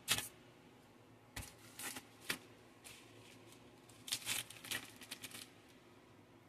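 A small white packet drops onto a felt pad with a soft slap, then crinkles and rustles in gloved hands in two clusters of short strokes.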